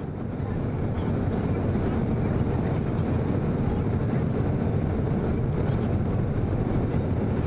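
Steady cabin noise inside a Bombardier CRJ-200 regional jet in flight: an even, low rush of airflow and the rear-mounted turbofan engines, fading up over the first second.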